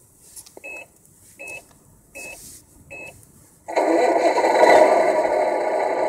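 Four short electronic beeps about three-quarters of a second apart, then a simulated diesel truck engine starts suddenly and runs on steadily: the sound unit of a Tamiya 1/14 tractor truck's MFC-01 multi-function control unit, played through its speaker.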